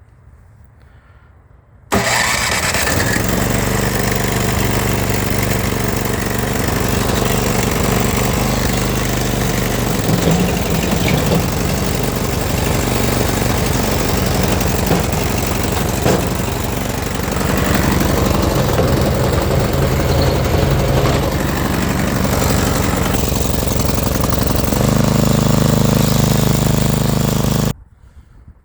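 Snow blower's small gasoline engine running steadily. It cuts in suddenly about two seconds in, its pitch rises slightly near the end, and it stops abruptly just before the end.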